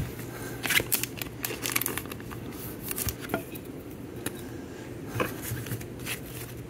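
Trading cards and pack wrappers being handled: scattered light crinkling and cards sliding against each other, busiest about a second in and again around five seconds, over a steady low hum.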